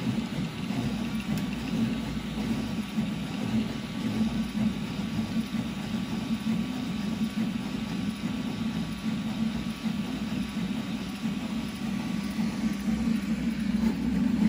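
Railcore II 300ZL CoreXY 3D printer printing infill at 250 mm/s: its stepper motors make a steady buzz that warbles rapidly in pitch as the toolhead darts back and forth.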